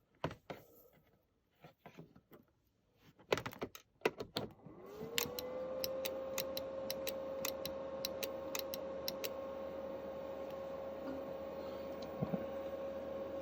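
Sharp clicks and handling noise on the workbench, then about five seconds in a whine rises in pitch over a second and holds steady with a hiss under it, while several more sharp clicks sound.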